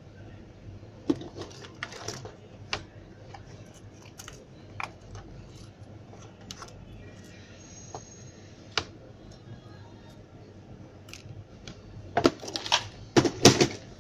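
Scattered small clicks and taps of tools and a small phone circuit board being handled and set down on a workbench, with a quick run of louder clicks near the end.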